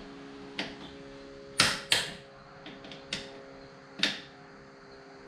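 Click-type torque wrench on a compact tractor's front wheel bolts: about six sharp metallic clicks at uneven intervals, two close together just before two seconds in. Each click marks a bolt reaching the set torque of 65 to 69 foot-pounds. A faint steady hum runs underneath.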